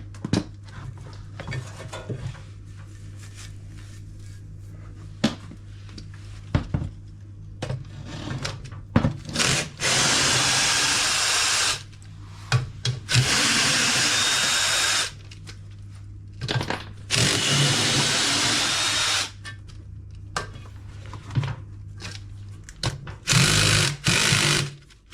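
Power drill with a 10 mm socket running in four spurts of one to two seconds each, unscrewing the bolts that hold a washing machine's counterweight, with clicks and knocks of tools on metal between spurts.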